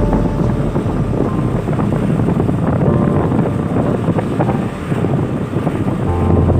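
Wind buffeting the microphone on a moving motorbike, a loud uneven low rush, with the bike's engine and road noise underneath.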